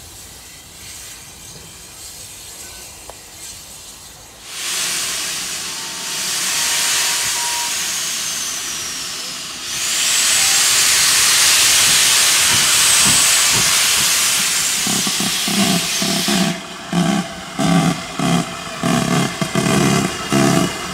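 GWR 4200 class 2-8-0 tank engine No. 4270 starting away with its cylinder drain cocks open. A loud steady hiss of steam comes on about four seconds in and grows louder about ten seconds in. From about sixteen seconds the exhaust chuffs begin, quickening as it gets moving.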